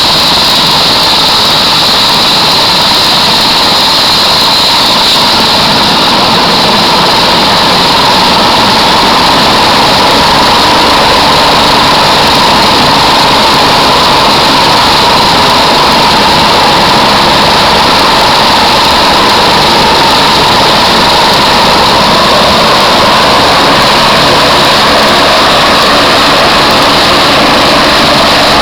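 Helicopter's turbine engine and rotor running loudly and steadily, with a high whine over a broad rushing noise.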